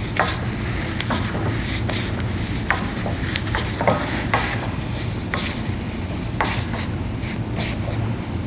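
Gloved hands turning a threaded rock-drill accumulator by hand in a bench vise: scattered light clicks and scrapes of metal, a few a second, over a steady low hum.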